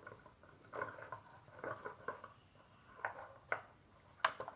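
Chunky bubblegum beads clicking and knocking together on waxed cord while the cord is handled and knotted: a scatter of light clicks and short rustles, the sharpest two clicks near the end.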